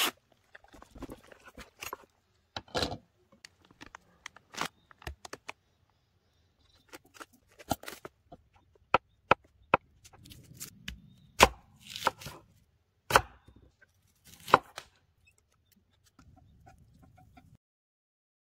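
Scattered sharp clicks and knocks at irregular intervals, with a few stretches of near silence between them.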